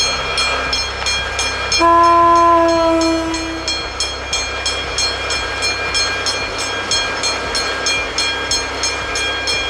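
Locomotive horn giving one steady blast of about two seconds, a couple of seconds in; it is the loudest sound. It sounds over a low steady rumble and a fast, regular, high-pitched ticking pattern of about three to four pulses a second.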